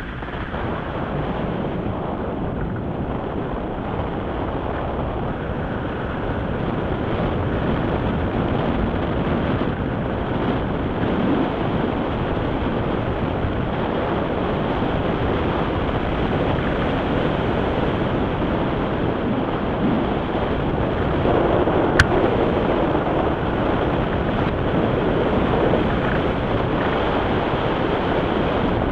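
Steady rush of wind over the microphone of a camera mounted on a hang glider in flight, swelling a little toward the end. One sharp click about three-quarters of the way through.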